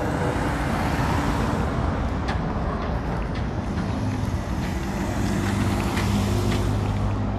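Street traffic: motor vehicles passing on a city road with tyre and engine noise, and a low engine hum growing louder about halfway through as a vehicle comes close.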